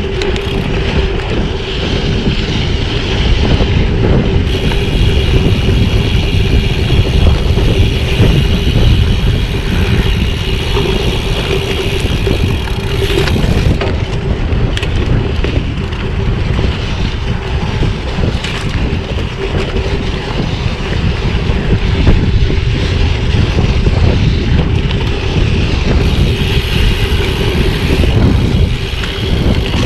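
Wind rushing over a chest-mounted GoPro's microphone as a bicycle is ridden, with tyre noise and a steady hum underneath.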